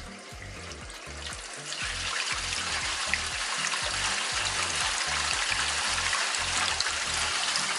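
Water rushing down the inside of a 3-inch ABS main drain stack, building up over the first two seconds and then running steadily: drain water flowing through the newly fitted flexible coupling during a test.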